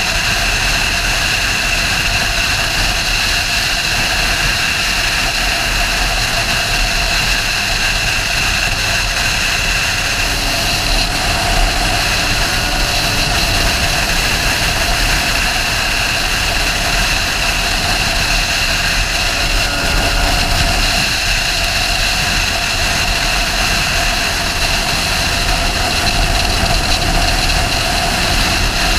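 Sportbike riding at a steady speed: the engine holds an even note under a constant rush of noise, with no revving or gear changes.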